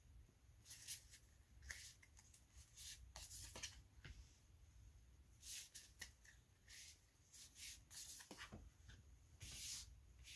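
Faint, irregular swishes of tarot cards being handled: cards slid off the deck and laid down on a cloth reading mat, a dozen or so soft rustles.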